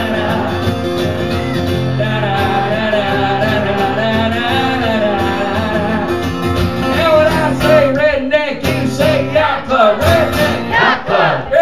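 Country song with male singing over guitar, giving way about seven seconds in to a crowd cheering and whooping.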